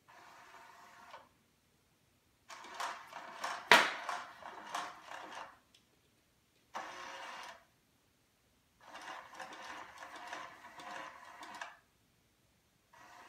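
Motorised cat toy's mechanism whirring in stop-start bursts of one to three seconds, with a sharp click about four seconds in.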